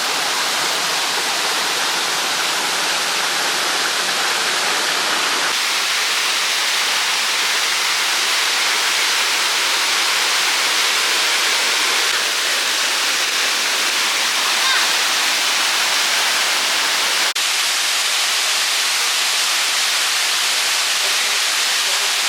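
Waterfall water rushing and splashing in a steady, loud hiss, with a momentary dip about three-quarters of the way through.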